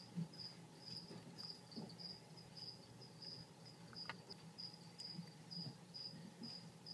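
A cricket chirping in a steady rhythm, short high chirps about two a second, over a low steady hum. There is a faint click about four seconds in.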